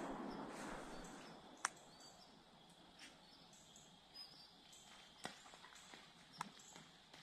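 The rumbling echo of a gunshot dying away through the woods, then near quiet with a few faint, sharp snaps and a faint steady high tone.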